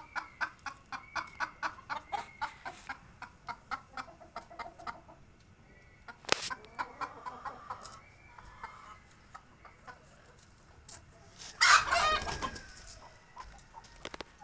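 Hens clucking, said to be suffering from a cold and cough. The first five seconds hold a fast run of short clucks, about four or five a second, followed by scattered calls and a sharp click. A loud, harsh burst comes about twelve seconds in.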